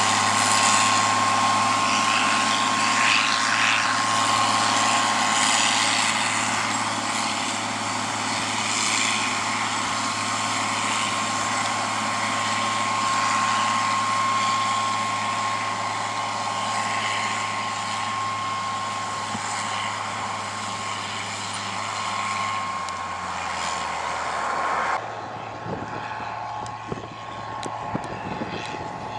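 John Deere 4650 tractor's six-cylinder diesel running steadily while pulling a bean planter, a steady high whine over the engine drone. About 25 seconds in, the hiss and whine drop away abruptly and the sound becomes quieter.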